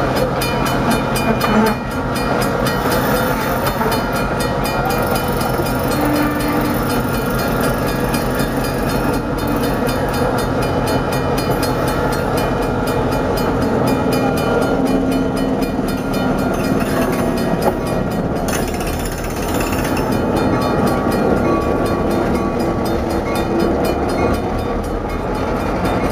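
Diesel-hauled passenger train rolling past at close range, with steady wheel and rail noise as the coaches go by. About halfway through, the diesel locomotive's engine comes past close by.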